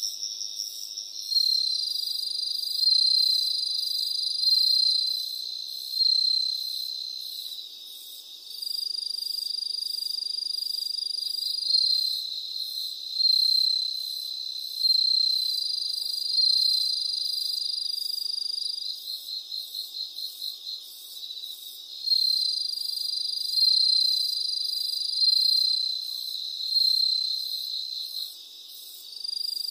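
High-pitched insect chorus: shrill, steady trilling tones that swell and drop away every couple of seconds, with a fast pulsing chirp near the middle.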